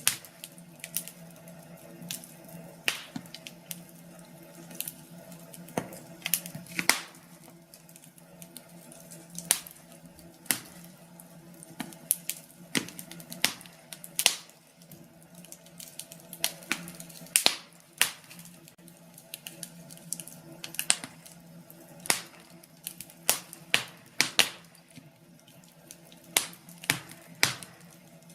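Wood fire in a fireplace crackling, with irregular sharp pops and snaps, several a second at times, over a faint steady low hum.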